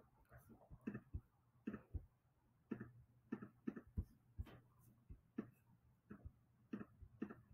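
Faint, irregular clicks of a computer mouse or trackpad being pressed, several times a second at times, as items on screen are selected.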